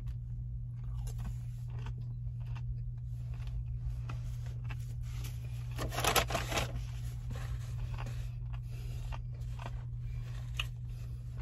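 Someone chewing a crisp strip of bacon: scattered small crunches and clicks, busiest about six seconds in, over a steady low hum in the car cabin.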